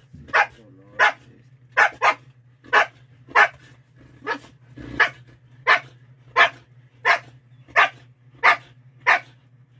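A dog barking in short, sharp barks at a steady pace, about fourteen barks, roughly one every two-thirds of a second: a begging bark from a dog waiting to be fed.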